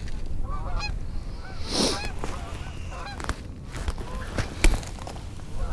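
Geese honking, a scattered string of short calls. There is a brief rush of noise about two seconds in and a sharp click a little later.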